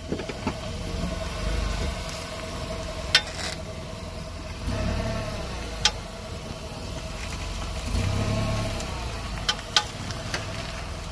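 2011 Maruti Suzuki Swift with its engine running, the rumble swelling a few times, and several sharp metallic clicks from the car. This fits the rear-end noise that the mechanic puts down to a small crack in the rear beam axle, which makes itself heard in reverse and under load.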